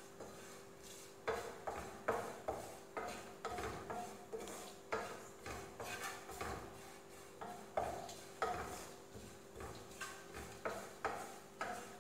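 Wooden spatula scraping and tapping against a nonstick frying pan, stirring grated coconut, shallots and spices as they dry-roast without oil. The strokes come irregularly, about one a second.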